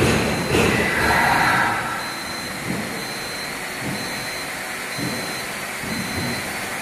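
Steel coil upender running as its cradle slowly tilts: a steady mechanical hum, louder and rougher for the first two seconds, then even. A faint high-pitched tone pulses about once a second over it.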